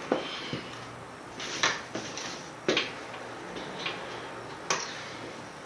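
Sharp metallic clicks and clinks of engine parts being handled on a Bedford RL engine during teardown: about five separate knocks, spaced irregularly, each with a brief ring.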